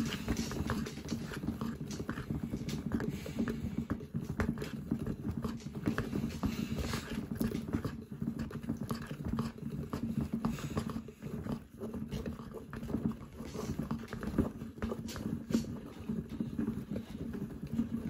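Small motor of a handmade toy front-loading washing machine running and turning its plastic cup drum, tumbling a small wet towel in the wash. A steady low hum with irregular clicks and knocks from the drum and load.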